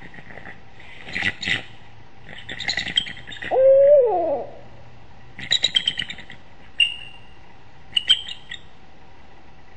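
Bald eagles giving high, rapid, chattering alarm calls in several short bursts, just after an owl strike at the nest. About three and a half seconds in comes a louder, lower cry that rises sharply and then falls away.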